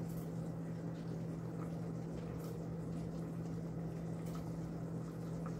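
Metal tongs clicking faintly a few times as pieces of cooked sausage are dropped into a pot of simmering soup, over a steady low hum.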